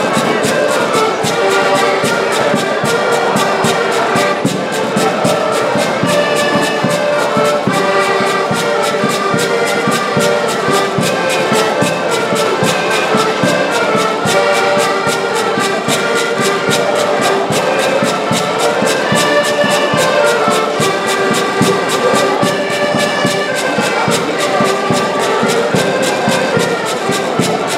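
An ensemble of diatonic button accordions (Portuguese concertinas) playing a folk tune together, several reed melody lines over a steady rhythmic bass-and-chord pulse.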